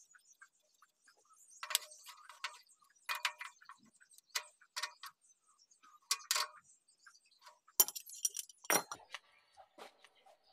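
Irregular metallic clicks and clinks of hand tools on a diesel engine's rocker arm as the loose tappet adjusting nut is set and tightened. The engine is not running.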